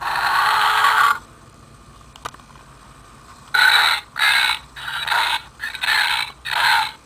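Novelty burping keychain playing recorded burp sounds: one long burp lasting about a second, a brief click a little after two seconds in, then a run of short, choppy burps from about three and a half seconds on.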